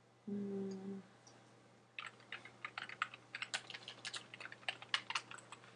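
Rapid keystrokes on a computer keyboard, a file name being deleted and retyped, starting about two seconds in. Before that, a short steady low hum lasting under a second.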